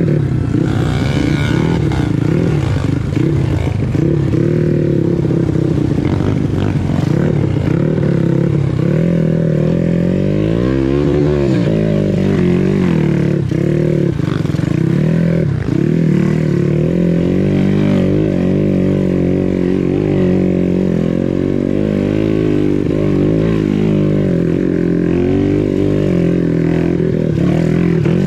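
Motorcycle engine revving up and down over and over, its pitch rising and falling without settling.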